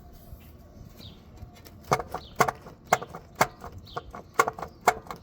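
A run of short, sharp sounds repeating about twice a second, starting about two seconds in.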